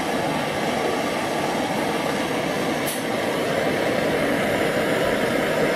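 A handheld gas torch burning steadily, its flame heating the bend of a motorcycle muffler's inlet pipe so that the bend can be straightened.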